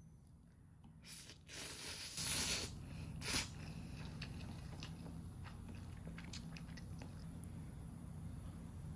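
A person eating spicy cold mixed noodles (bibimmyeon). A few loud slurps come between about one and three and a half seconds in, followed by chewing with small wet clicks.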